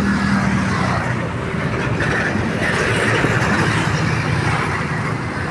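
A bus's engine running steadily with a constant low hum, amid street traffic noise.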